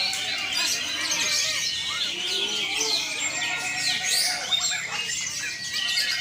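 Many green leafbirds (cucak ijo) singing at once: a dense chorus of overlapping chirps, whistles and trills, as at a bird-singing contest.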